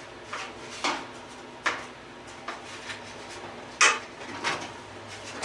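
Sharp metallic clanks and knocks from tools and metal parts while an old gas stove is being taken apart, about four louder hits among several lighter ones.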